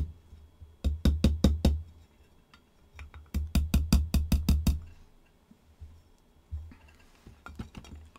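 Small hammer tapping brass to peen a misshapen fitting and close up its hole: two quick runs of sharp taps, about six or seven a second, each with a dull thud beneath, then a few lighter taps near the end.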